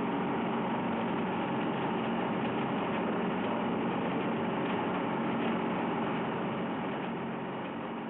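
Heavy engine machinery running steadily with a constant hum, fading out near the end.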